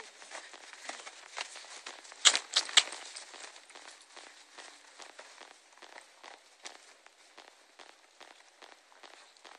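Steps crunching through snow in an uneven run of short, crisp crackles, with three sharper, louder cracks about two seconds in.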